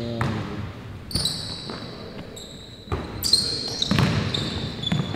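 Basketball dribbled on a hardwood gym floor, its bounces thudding, with short high squeaks of sneakers on the court as players cut and drive. A voice is heard briefly at the start.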